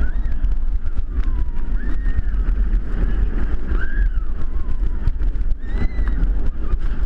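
Heavy wind buffeting on an onboard camera microphone, with the steel roller coaster train rumbling along its track at speed. A few short rising-and-falling high tones come through over the rumble.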